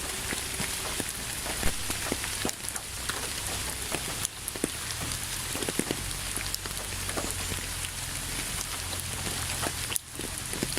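Steady rain falling, a dense hiss with many individual drops striking a surface. It briefly drops away about ten seconds in, then carries on.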